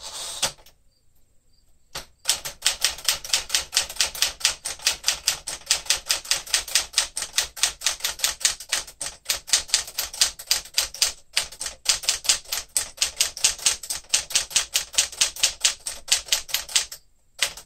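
Keys of a 1967 Sears Tower Citation typewriter, built by Smith Corona, striking the platen in a fast, even run of about six keystrokes a second while a long line is typed. The run starts about two seconds in and breaks once briefly near the middle.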